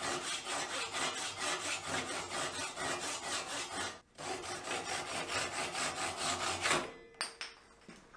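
Japanese double-edge pull saw cutting across the grain of a wooden ball with its crosscut edge, in rapid, even strokes. The strokes break off briefly about four seconds in and stop near the end, followed by a few light knocks.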